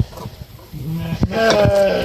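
A farm animal gives one drawn-out call, starting a little before the midpoint, lasting just over a second and stepping up slightly in pitch. Irregular sharp knocks sound around it.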